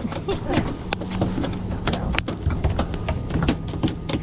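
Irregular clicks and knocks of handling on a fibreglass boat deck over a steady low hum.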